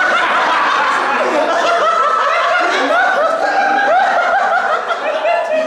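Audience laughing: several people chuckling and laughing at once, in a loud, unbroken stretch.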